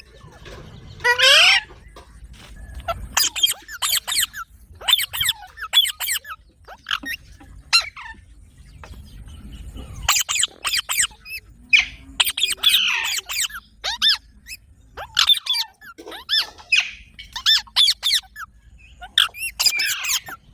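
Pet green ringneck parrot calling: a string of short, shrill chirps and squawks, some in quick clusters, with brief pauses between them.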